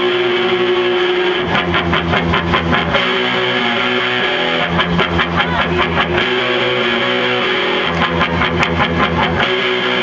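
Live band playing a song's instrumental intro, led by several electric guitars, with rhythmic strumming that picks up about a second and a half in.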